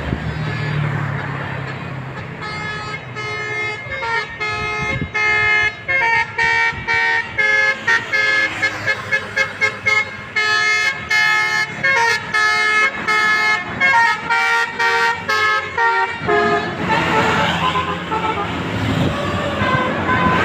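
Indonesian bus 'telolet' multi-trumpet air horn playing a melody of stepped notes, breaking into a run of quick staccato toots in the middle. It stops about four seconds before the end, leaving a rush of vehicle noise.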